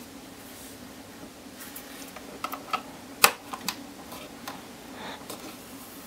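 Light plastic clicks and taps as an Ethernet cable's plug is pushed into a small plastic hub's port, with one sharper click about three seconds in. A faint steady hum lies underneath.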